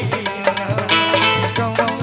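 Khortha folk-song stage music: a quick, steady drum beat under a wavering melody line.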